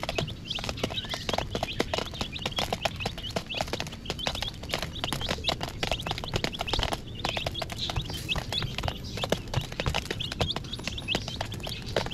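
A flock of young chicks peeping continuously, many short falling chirps overlapping, mixed with rapid sharp taps of beaks pecking feed from a plastic dish.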